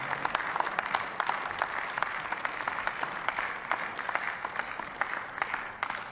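Applause from members of parliament at the end of a speech: many hands clapping, thinning and dying away near the end.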